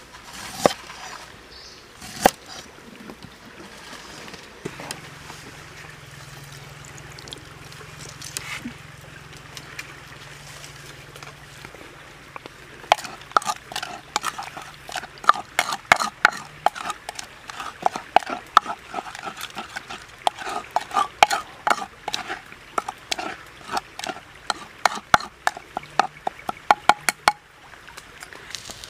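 A cleaver chops twice on a wooden board at the start. Later a wooden spoon stirs a watery chili dressing in a wooden mortar, rapidly clacking against the wood and sloshing the liquid.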